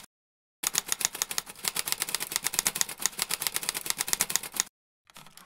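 Quick run of typewriter key clacks, about ten a second, typing out a line of text. The clacks start about half a second in, break off near the end, then a few more strokes follow.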